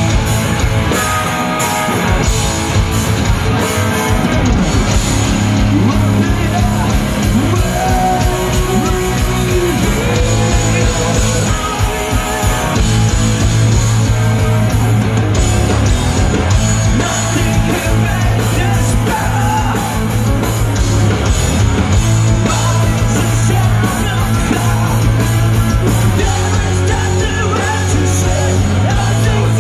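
A rock band playing loud live through a PA: electric guitars, bass guitar and drums.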